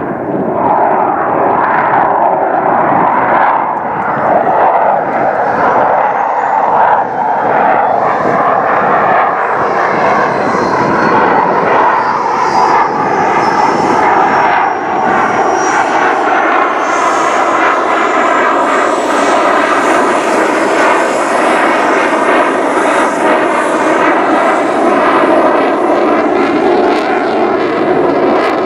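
Boeing F/A-18F Super Hornet's twin General Electric F414 turbofans: loud, steady jet noise overhead during a demonstration pass, with a thin high whine that rises through the middle and then holds.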